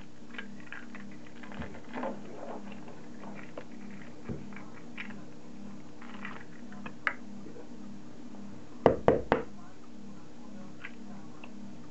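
Three quick sharp knocks about nine seconds in: an egg struck against the rim of a mixing bowl to crack it. Smaller clicks of eggshell handling come before it, over a steady low hum.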